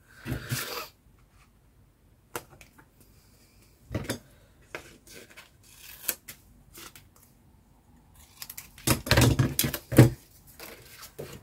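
Hands handling paper and card on a craft table: a short rustle at the start, scattered single clicks and taps, then a louder stretch of rustling and knocking about nine seconds in.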